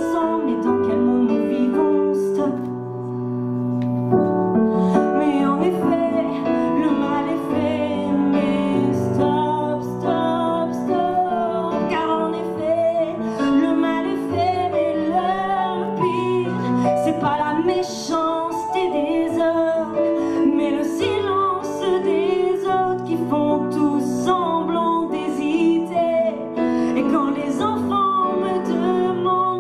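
A woman singing a cover song into a handheld microphone over a backing track with piano.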